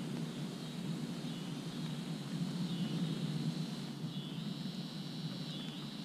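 Steady rain falling in woodland, with a high, even insect drone that dips briefly every second or so.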